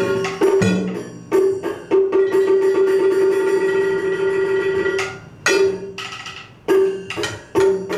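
Traditional Vietnamese chèo ensemble music: a held melodic note runs under sharp percussion strikes on drum and wood block, a few near the start and a cluster in the second half.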